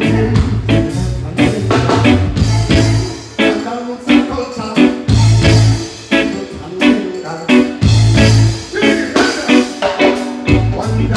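Live reggae band playing a steady groove, with a deep pulsing bass line under the drums and guitar.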